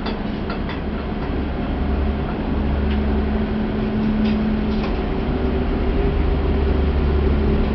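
Halifax Transit harbour ferry's engines droning steadily under way, heard from the open deck: a deep rumble with a steady hum over it, growing slightly louder.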